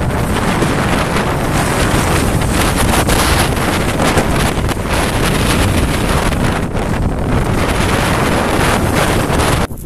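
Strong gusty wind buffeting a phone's microphone: loud, rumbling wind noise that swells and falls with the gusts and covers everything else, dipping briefly just before the end.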